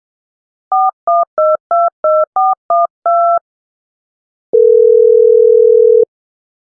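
Touch-tone telephone dialing: eight short two-note DTMF beeps in quick succession, the last held a little longer. After about a second's pause, a steady low ringback tone sounds for about a second and a half, the line ringing at the other end.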